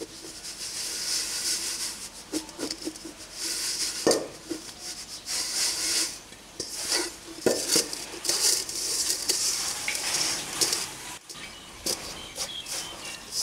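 Stainless steel mixing bowl being shaken and tossed to coat tadpoles in flour: repeated dry swishes of the floury tadpoles sliding around the metal bowl, with a few knocks against the bowl.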